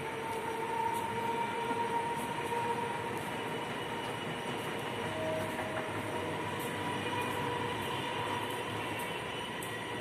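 Small electric drive motor of a remote-controlled pleated mosquito net running steadily, drawing the pleated mesh closed across the frame, with a steady whine over a rushing hum.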